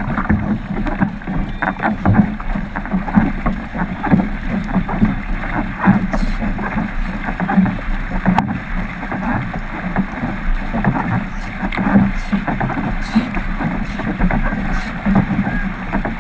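Racing kayak being paddled hard with a wing paddle: rapid, rhythmic paddle strokes splashing into the water on alternate sides, with water rushing along the hull close to the bow.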